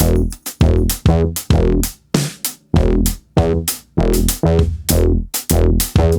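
Music with a steady electronic drum beat and deep bass notes.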